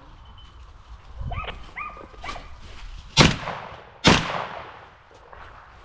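Two shotgun shots about a second apart, a little over three seconds in, each trailing off as it echoes. Before them, hunting dogs bark.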